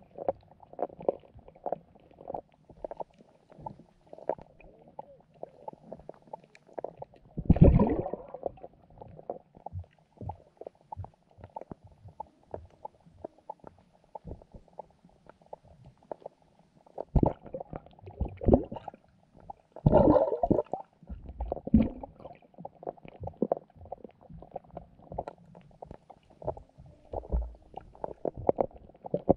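Underwater sound picked up by a submerged camera among carp and goldfish: a constant run of small muffled clicks and knocks, with louder thumps about eight seconds in and several more between about 17 and 22 seconds in.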